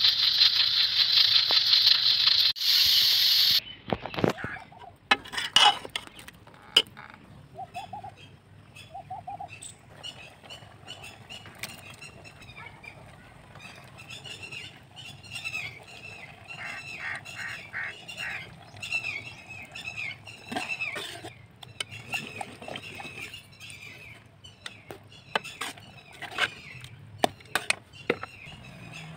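A pressure cooker hissing loudly as steam escapes through its valve, cutting off about three and a half seconds in. After that, a metal ladle clinks and knocks in the pot of cooked chana dal while birds chirp in the background.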